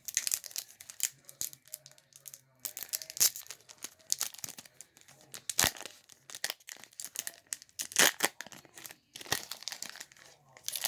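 A trading-card booster pack's wrapper being torn open and crinkled, in a run of irregular sharp crackles and rustles.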